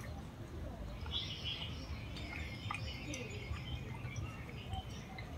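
Small birds chirping in short scattered calls, with a dog lapping water from a puddle in a few wet clicks, over a low steady rumble.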